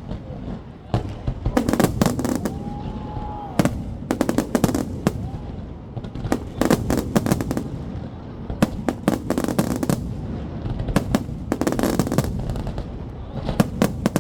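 Fireworks display going off: dense runs of sharp bangs and crackles over a continuous low rumble of booms.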